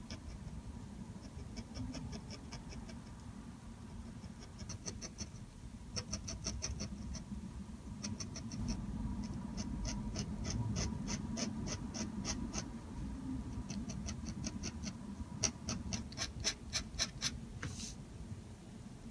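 A dip pen's metal nib scratching on paper in quick short strokes, laying down hatching marks. It comes as runs of light ticks, several a second, busiest and loudest near the end, with one longer scratch just before it stops.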